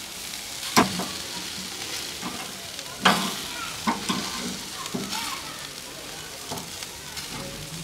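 Chicken wings sizzling on a charcoal barbecue grill, with a few sharp clicks and knocks as the pieces are moved across the grate, the loudest about 1 s and 3 s in.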